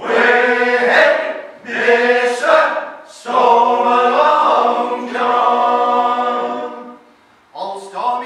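Male shanty choir singing unaccompanied in harmony: three phrases, the last a long held chord that dies away about seven seconds in, then the voices come back in near the end.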